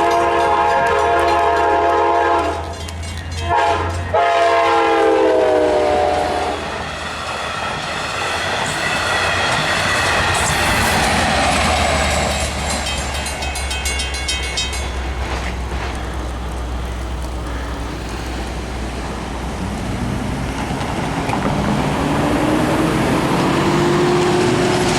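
Nathan K5LA five-chime horn on an LIRR EMD DM30AC locomotive sounding a long chord, breaking off, then sounding again with the chord dropping in pitch as the locomotive passes. The diesel locomotives and bi-level cars then run past, wheels clicking over the rail joints and crossing bells ringing, with a tone rising near the end.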